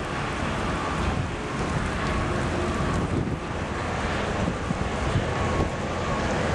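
Car driving: steady road rumble with wind noise on the microphone.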